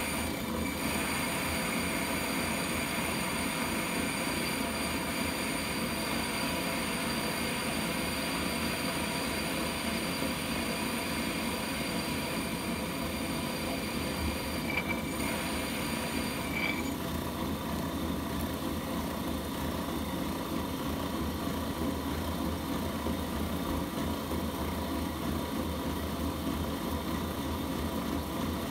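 AMMCO brake lathe running with a worn arbor held in its turning spindle to lap the arbor into the spindle taper: a steady motor whine over a continuous gritty grinding and scraping of metal on metal. The higher whine changes and partly drops away about two-thirds of the way through.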